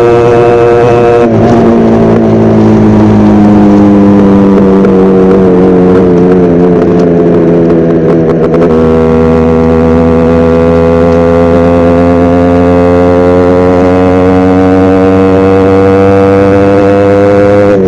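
Yamaha RX100 two-stroke single-cylinder engine under way on the road. Its note shifts about a second in and again near the middle, then rises slowly through the second half as the bike pulls.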